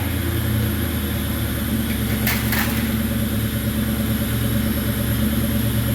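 Ford 4.6-litre two-valve V8 idling steadily through a stock H-pipe and Thrush chambered mufflers, running like a diesel. A couple of brief clicks come about two and a half seconds in.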